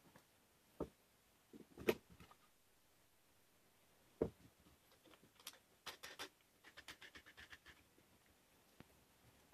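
Wooden jig parts and their metal hardware (bolts, wing nuts, threaded rod) handled on a plywood workbench: a few separate knocks, the sharpest about two seconds in. From about five and a half seconds in comes a quick run of small clicks and ticks, about eight a second.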